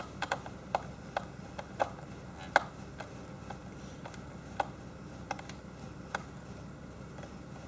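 Irregular small clicks and taps of laptop parts being handled while a drive is fitted back into its bay, the sharpest about two and a half seconds in.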